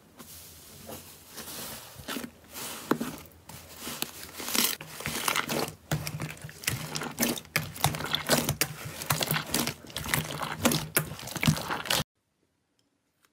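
Hands squishing, pressing and stretching slime, giving a dense, irregular stream of sticky clicks, pops and crackles. It cuts off suddenly near the end.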